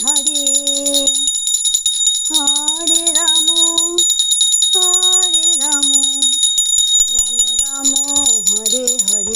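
A handbell rings steadily through the whole stretch under a woman's voice singing a devotional chant in four short melodic phrases with gliding pitch.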